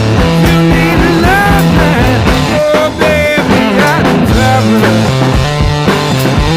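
Rock music with guitar, bending lead lines over a steady drum beat.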